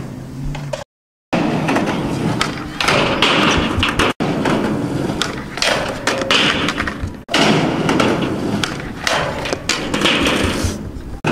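Skateboard run-ups and kickflip backside tailslide attempts on a steel handrail: wheels rolling on concrete, the tail sliding on the rail, and the board clattering and thudding when the skater steps off. The sound breaks off abruptly a few times.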